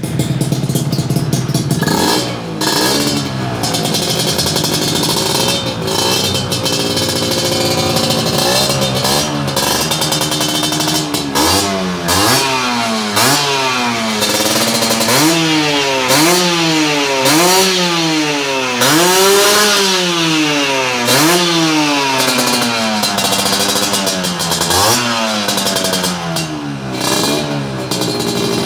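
Yamaha 125 cc motorcycle engine breathing through an aftermarket stainless exhaust. It runs steadily for about two seconds, then is revved again and again, its pitch climbing and falling about once a second through the middle.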